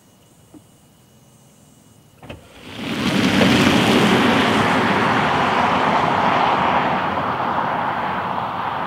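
Tesla Model S P85D dual-motor electric sedan launching hard from a standstill: near-quiet at first with a couple of faint clicks, then about two and a half seconds in a sudden loud rushing noise of the car pulling away, with no engine note, which slowly fades as it drives off.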